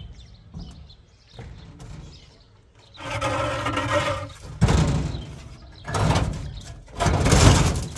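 Heavy precast concrete rings scraping and grinding as they are dragged and tipped across a steel truck bed. There are several rough drags of about a second each, starting about three seconds in, with a sharp knock between them.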